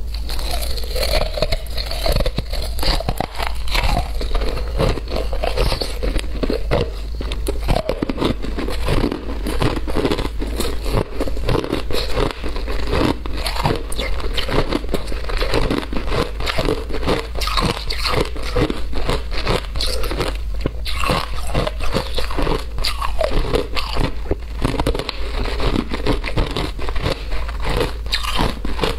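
Shaved ice being bitten and chewed: a dense, continuous run of crisp crunches and crackles.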